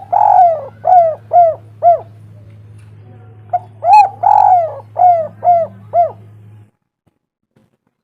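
Spotted dove cooing: two phrases of several short arched coos each, the second starting about three and a half seconds in, over a steady low hum. The sound stops short of the end.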